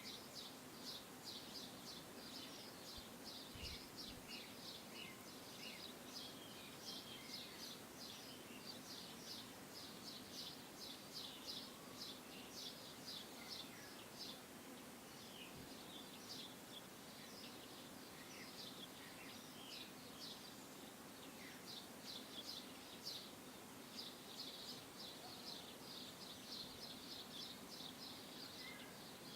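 Faint outdoor ambience of small birds chirping: many short, high chirps in quick, irregular runs throughout, over a faint steady low hum.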